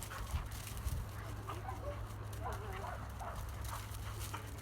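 A dog making short, high whines that rise and fall over a steady low hum, with two soft thumps about half a second and a second in.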